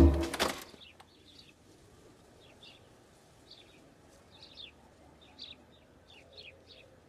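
Music cuts off with a final chord about half a second in. Then faint birds chirp, short scattered calls about once a second over a quiet background.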